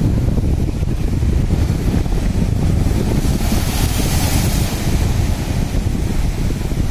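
Rough sea surf breaking and washing over a row of large sandbags, under heavy wind rumble on the microphone. About three and a half seconds in, a wave crashes into spray with a louder hiss.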